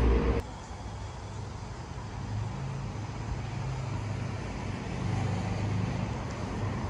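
Steady low rumble of road traffic. A louder, deeper rumble cuts off suddenly about half a second in.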